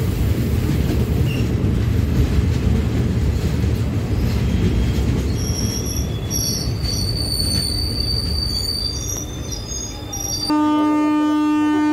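Passenger train running on the track, a loud low rumble of wheels on rails. High steady wheel squeals come in from about six seconds. About ten seconds in, a train horn starts abruptly, holding one long steady note.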